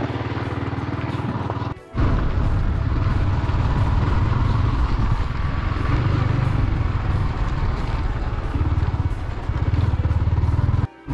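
Motorcycle engine pulling steadily uphill, carrying two riders up a steep, stony track. The sound cuts out suddenly and briefly twice, about two seconds in and again near the end.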